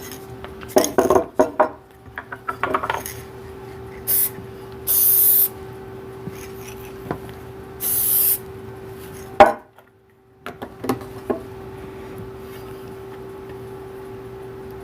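Aerosol spray can hissing in three short bursts, the longest about half a second, applying spray adhesive along the edges of an armrest cover, after a patch of handling clicks and clatter. A steady hum runs underneath.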